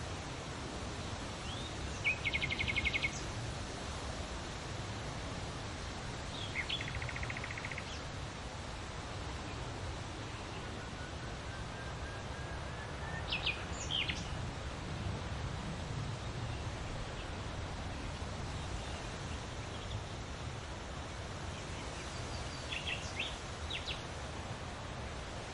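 Wind blowing through large leaves, a steady rustling rush. Small birds call over it: a rapid trill twice in the first several seconds, then chirps midway and again near the end.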